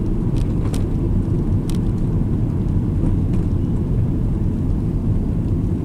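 Steady engine and road rumble heard from inside the cabin of a moving 2002 Subaru Legacy Blitzen, a flat-four boxer car, with a few faint clicks.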